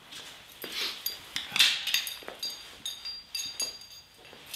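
Footsteps on a hard floor and handling noises: a series of light knocks and clicks, with a faint high metallic ringing in the middle.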